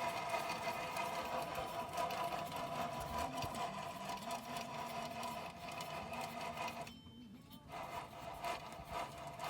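Noise from a faulty vehicle wheel: a steady mechanical whirr with a rapid rattle. It drops away about seven seconds in and comes back faintly near the end.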